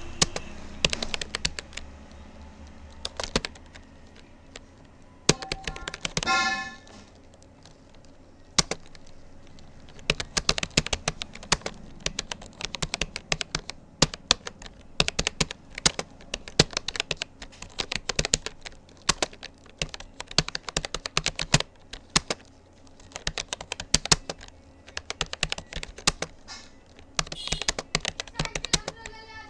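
Fast, irregular keystrokes on a Rapoo computer keyboard during continuous touch typing, with short lulls between bursts. About six seconds in, a brief pitched sound rings out over the typing.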